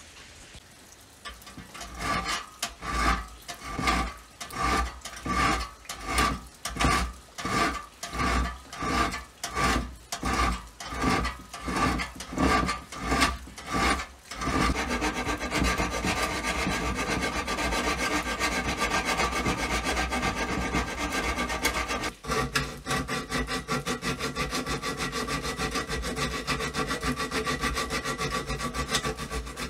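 Back-and-forth scraping strokes of a hand tool working a part of a metal lamp. At first the strokes are slow and even, about one and a half a second. About halfway through they turn to fast, nearly continuous strokes, with a short break about three quarters of the way through.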